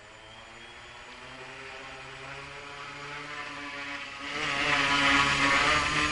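Twin electric motors of a bicopter spinning two-bladed APC propellers, a whir that rises slowly in pitch and loudness as they spool up, then turns much louder and rushing about four seconds in.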